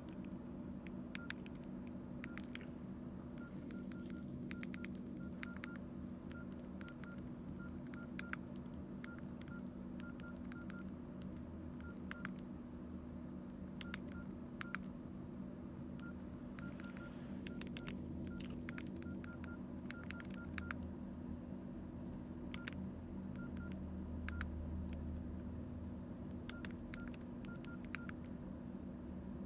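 Keys pressed on a Nokia N82 mobile phone's keypad, each press a click with a short high key-tone beep, coming in quick irregular runs with pauses between. A steady low hum runs underneath.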